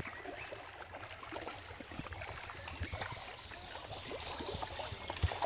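River water splashing and sloshing as fish thrash and break the surface, a busy run of many small, irregular splashes over a steady flow of moving water.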